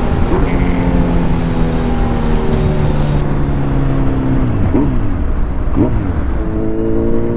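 Kawasaki Z900's inline-four engine running at road speed, with wind rush on the microphone. The engine pitch sags slowly, makes two quick swings down and up around the middle, then climbs steadily as the bike accelerates near the end.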